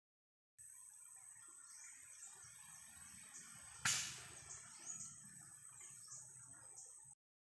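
Outdoor bird-hunting ambience: birds chirping over a steady high insect drone, broken by a single sharp shot about three seconds in, the loudest sound, with a short ringing tail.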